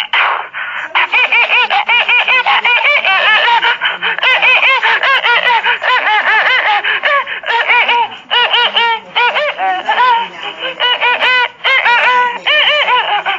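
A young child's high-pitched laughter: rapid rising-and-falling squeals repeating several times a second, with a couple of brief pauses.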